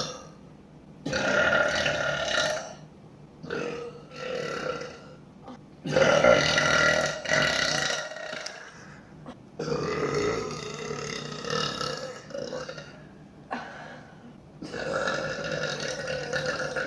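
A woman belching repeatedly: a series of about five loud, long, drawn-out burps, each lasting one to four seconds, with short pauses between them.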